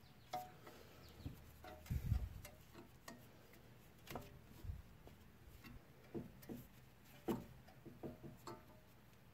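Faint, scattered metal clicks and clinks with a few dull knocks as a steel C-clamp is handled and repositioned on a twin-piston brake caliper, pressing the pistons back in.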